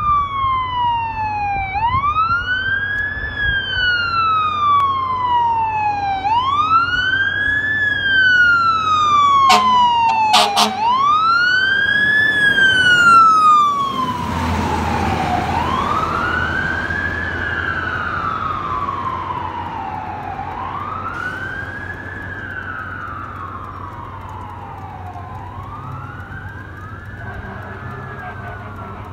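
Fire engine siren wailing in repeated cycles, each rising quickly and then falling slowly, about every four and a half seconds. Two short horn blasts come about ten seconds in. The engine passes close about fourteen seconds in with a rush of engine and road noise, then the siren fades as the truck moves away.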